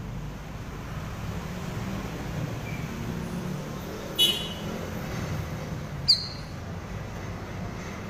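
A caged cucak rawis bulbul gives two short, sharp, high calls, about four and six seconds in, over a steady low background rumble.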